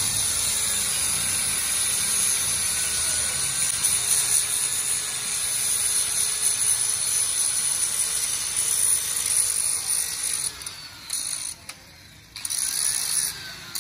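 Electric angle grinder with an abrasive disc grinding steel on a tractor clutch pressure plate, a steady high-pitched hissing grind over the motor's whine. Near the end the grinding drops away for a moment and then resumes.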